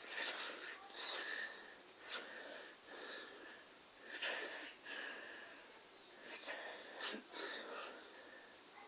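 A baby's inspiratory stridor from laryngomalacia: a squeaky, wheezing note on each breath, coming about once a second.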